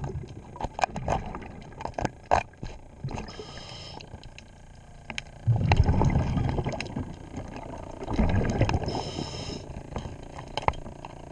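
Scuba diver breathing through a regulator underwater: two loud bursts of exhaled bubbles about halfway through and near the end, with short hisses of inhaling through the regulator, amid scattered sharp clicks and taps.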